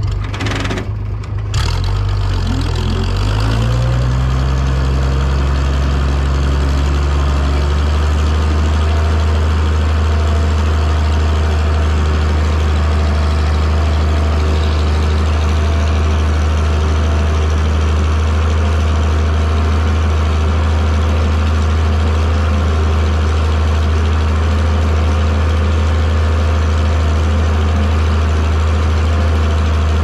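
Farm tractor's engine running steadily while pulling a row-crop cultivator through a corn field. Its pitch shifts over the first few seconds, then holds steady.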